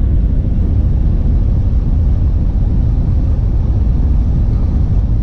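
Steady low rumble of road and engine noise inside a Dodge pickup's cab cruising at highway speed.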